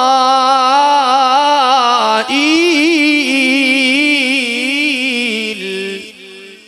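Male qari's Quran recitation in the melodic tilawah style, sung into a microphone: one long melismatic line with wide vibrato that leaps to a higher pitch about two seconds in, then descends and fades out near the end.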